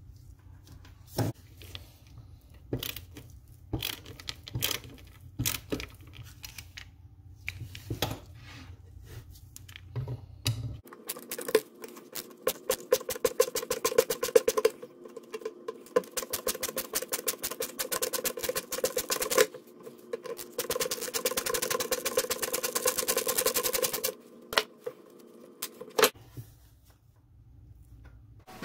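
Scattered clicks and knocks as the wooden arm of an antique buck saw is handled. Then comes a long run of rapid, even clicking from a screwdriver turning a screw in the wooden frame, stopping a few seconds before the end, followed by a few more knocks.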